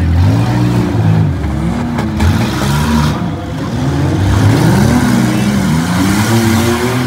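Six-cylinder demolition derby car engines revving hard, their pitch climbing and dropping again and again as several cars accelerate and back off at once; a sharp bang about two seconds in.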